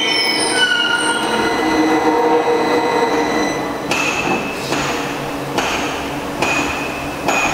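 Metal fabrication shop machinery: several ringing metallic tones, some sliding in pitch during the first second, and from about four seconds in a sharp clank roughly once a second.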